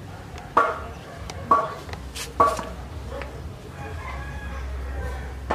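Chickens calling: four short, sharp clucks about a second apart, then a fainter, longer drawn-out call in the second half.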